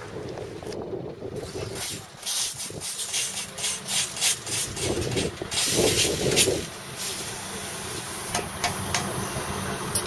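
Compressed air hissing from a heavy low-loader truck's air system in a quick series of short, sharp bursts, over a low steady rumble.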